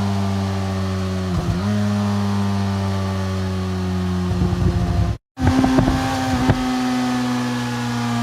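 Motorcycle engine running and decelerating, its pitch sinking slowly. Rough, uneven stretches come about four and a half and six seconds in, and the sound cuts out for a moment about five seconds in before resuming at a slightly higher pitch.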